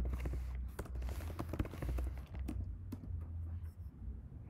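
Computer keyboard keystrokes, a scattered run of short clicks as a word is typed and entered, over a low steady hum.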